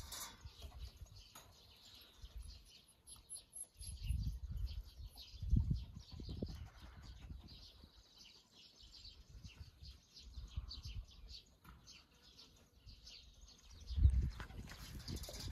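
Faint outdoor ambience: low rumbles come and go, strongest about four to seven seconds in and again near the end, under faint high chirps, with a quick high trill about three seconds in.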